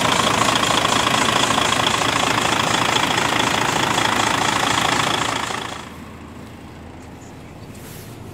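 Rear-mounted diesel engine of a Van Hool TD921 Altano double-decker coach idling with its engine bay open, a steady run with a high whine over it. About five and a half seconds in it gives way to a much quieter low hum.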